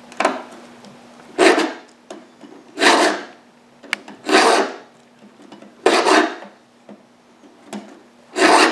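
Hand filing of a chainsaw chain with a two-in-one file guide: a round file and a flat file rasp across the steel at once, about six strokes roughly a second and a half apart. Each stroke sharpens a cutting tooth and lowers its depth gauge.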